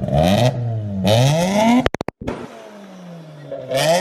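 Turbocharged car engine revving, its pitch climbing twice in quick pulls and then cutting off abruptly with a few sharp clicks as the throttle is lifted. It is followed by a long falling tone as the revs drop, then another climb near the end.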